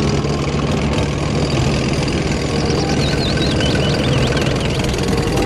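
Main battle tank driving on a dirt track: a steady, loud engine drone with the rumble and clatter of its tracks. A few bird chirps come through briefly in the middle.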